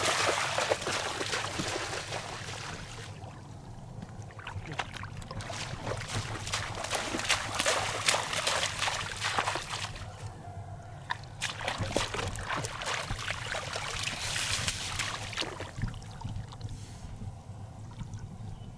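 Water splashing and sloshing in several bursts of crackling, trickling noise, with quieter spells in between, about three and ten seconds in, and again from about sixteen seconds.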